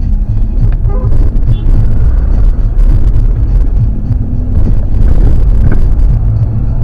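Car engine and cabin rumble, a loud, steady low drone, as the car slows to a stop on a rough mountain road.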